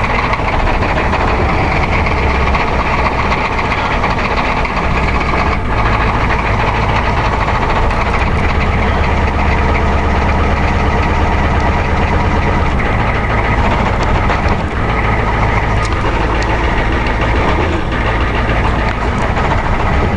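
1990 Ford F-250's 7.3-litre IDI V8 diesel running just after a cold start at −15 °C, a loud steady diesel clatter with its idle speed shifting up and down unevenly. The owner says the injectors aren't helping the rough running.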